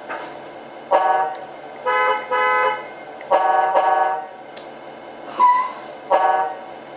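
Simulated truck horn sounds from a Tamiya MFC-03 multi-function sound unit's speaker. About six separate blasts of different pitches and lengths, one a quick double and one long, over a steady low hum.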